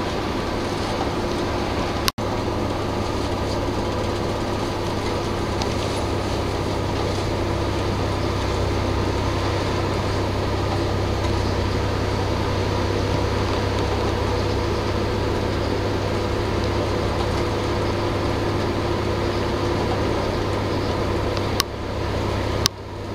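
Steady engine noise and road rumble of a coach bus driving on the highway, heard inside the passenger cabin, with a steady hum over it. Short sharp clicks break the sound about two seconds in and twice near the end.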